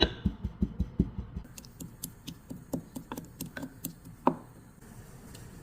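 Ginger being crushed by hand: a run of rhythmic knocks, about four a second, heavy at first, then lighter and sparser after about a second and a half, with one sharper knock just past four seconds.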